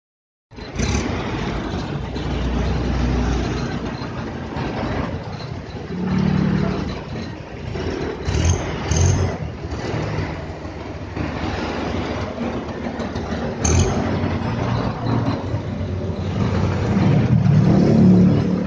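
A vehicle engine running, its low hum rising and falling unevenly, with a few sharp knocks.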